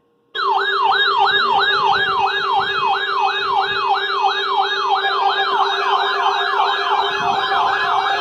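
Electronic emergency-alert siren tone cutting in suddenly just after the start. Its pitch sweeps up and down about three times a second, quickening toward the end, over a steady lower tone.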